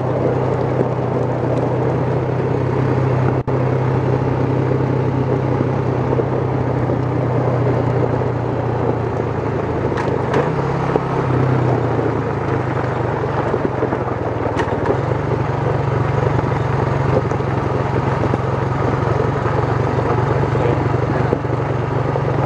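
ATV engine running steadily under way, with wind and road noise rushing over the microphone; the engine note shifts briefly about ten to twelve seconds in.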